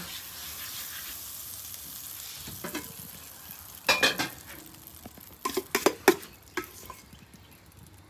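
Butter sizzling in a steady hiss as it is rubbed across the hot griddle top, then a metal spoon clinking and scraping in a stainless-steel bowl of pancake batter, with a few sharp clinks about four seconds in and a quick run of them around six seconds.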